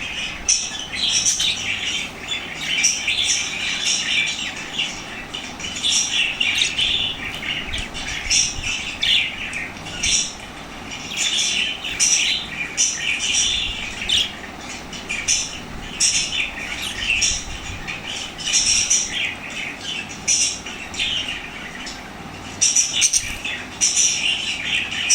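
Small pet parrots chattering nonstop, a dense mix of sharp chirps and squawks with no pauses.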